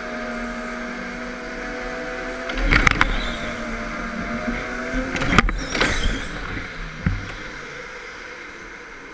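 Go-kart running on an indoor track, heard from the driver's seat. Its motor note dips and rises through the corners, with a burst of rattling about three seconds in and a sharp knock about five and a half seconds in.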